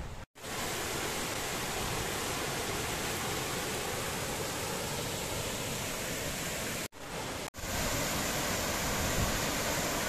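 Steady rushing of a jungle stream and waterfall, broken by brief dropouts where shots are cut together, just after the start and twice about seven seconds in.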